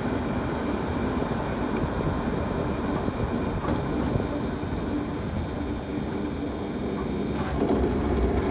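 Pickup truck on the move: a steady rumble of engine and road noise, growing louder near the end.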